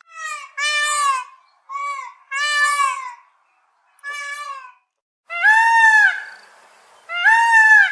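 Male Indian peafowl (peacock) calling: a series of short wailing calls, each rising and falling in pitch, then two longer, louder calls near the end.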